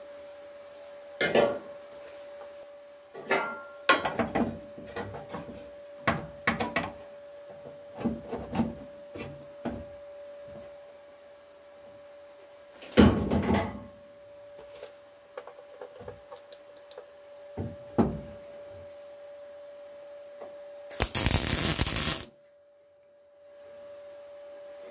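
Steel chassis repair section being knocked and slid into place in a car floor: irregular metal clunks and scrapes. About 21 s in, a MIG welder tacks it for just over a second. A steady hum runs underneath.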